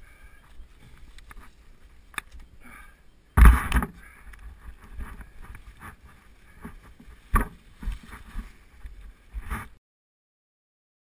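Handling noise from a GoPro in its housing: rustling and knocks, with one loud thump about three and a half seconds in and a few sharp clicks. The sound cuts out completely near the end.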